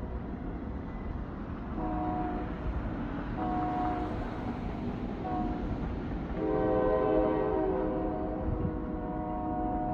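Train horn sounding a chord in separate blasts: a blast about two seconds in, another at three and a half seconds, a brief toot near five seconds, then a long held blast from about six and a half seconds on, over the low rumble of the rolling train.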